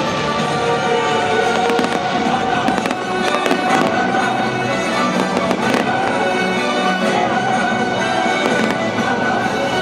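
Fireworks popping and crackling in quick, irregular succession, over loud music with held tones.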